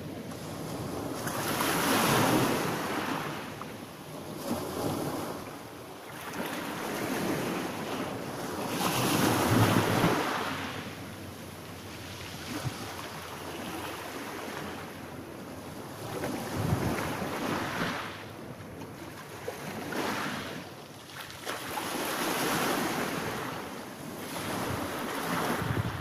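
Small waves breaking and washing over a pebble beach, each surge swelling and falling back every few seconds.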